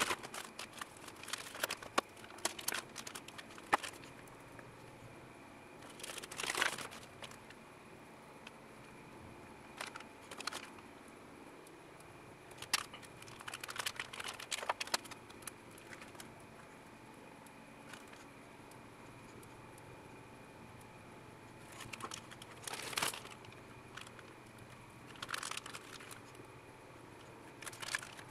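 Plastic component bags crinkling in short bursts as they are handled and opened, with a few sharp clicks near the start.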